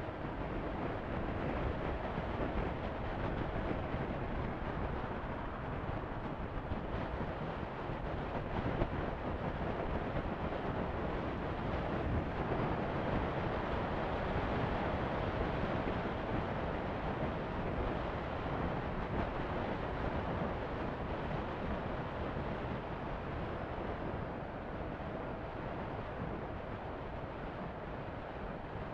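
Honda CB500F motorcycle riding at steady road speed: wind rushing over the microphone, with the engine running underneath.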